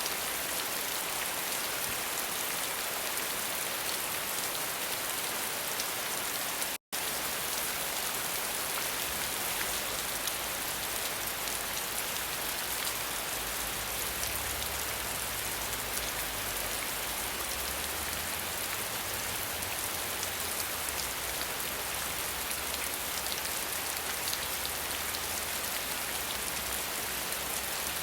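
Steady heavy rain, an even hiss of drops falling on surfaces. About seven seconds in the sound cuts out for an instant, and from about ten seconds a low rumble runs under the rain.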